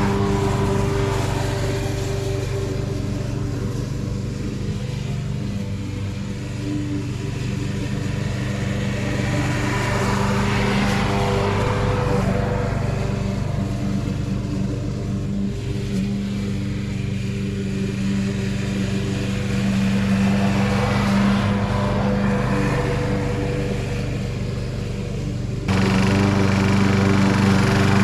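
Petrol walk-behind rotary lawn mower running steadily as it mows grass, its engine note growing fainter and louder again as it moves away and back. Near the end the level jumps up suddenly.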